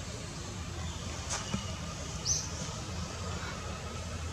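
Quiet outdoor background of a steady low rumble, with a single click just over a second in and a short high chirp about two seconds in.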